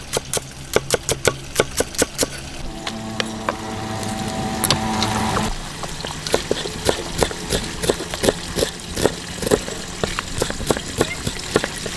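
Large knife chopping quickly on a thick round wooden chopping block, cutting spring onions and then chilli peppers, about four strokes a second. A steady drone joins the chopping for a few seconds near the middle.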